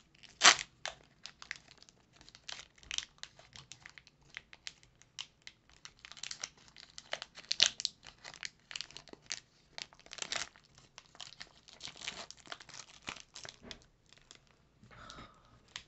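Foil wrapper of a Pokémon card booster pack being torn open by hand: irregular crinkling and tearing crackles, the sharpest about half a second in.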